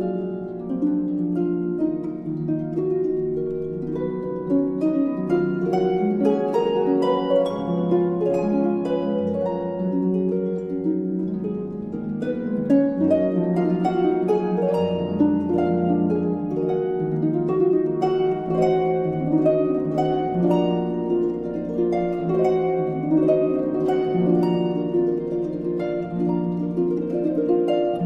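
Background music of plucked-string notes, many short notes starting one after another and ringing over each other.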